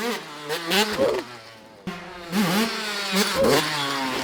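Two-stroke dirt bike engine running at a steady buzz, with several quick revs that rise and fall, and a brief drop about a second in.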